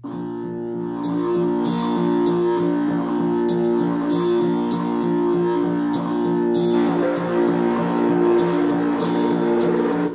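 Guitar-led rock music played loud through a pair of small AmazonBasics USB-powered computer speakers, turned up high as a test of how far they go before distorting. The music starts suddenly and keeps a steady beat.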